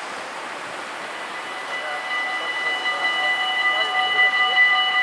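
Warning bells of a Dutch automatic half-barrier level crossing (AHOB) start ringing about two seconds in, a steady ring of several tones that grows louder, signalling that a train is approaching and the barriers are about to come down. Before that, a car drives over the crossing.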